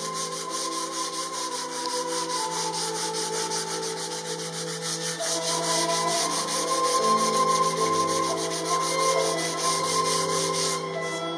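Hand sanding a wooden leg with sandpaper wrapped on a sanding block: quick, even back-and-forth rasping strokes, about five a second. Background music with long held notes plays underneath.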